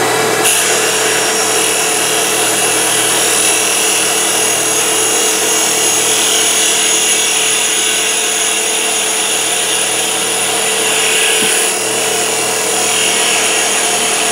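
CNC wood lathe running with a steady motor hum while its cutter shaves a spinning wooden spindle. The hiss of cutting begins about half a second in, drops out briefly near the end, then resumes. The new cutter is cutting cleanly and throwing off ribbons of shavings.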